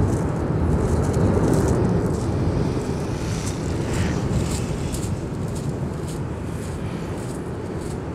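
Lava fountains jetting from the Cumbre Vieja eruption's main vent: a continuous deep rushing rumble, with scattered faint crackles, mostly in the middle.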